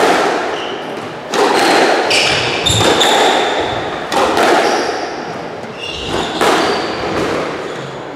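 Squash rally: the rubber ball struck by rackets and smacking off the court walls every second or so, each hit echoing in the court. Shoes squeak sharply on the wooden floor between shots.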